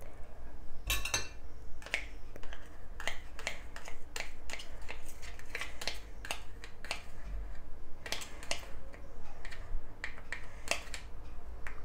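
Irregular light clicks and taps, a few a second, from handling kitchenware while condensed milk is poured over frozen banana slices in a glass blender jar.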